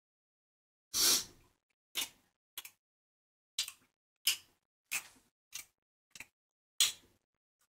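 Close-miked eating sounds: about nine short chewing and mouth sounds, roughly one every half-second or so, with the first and longest about a second in.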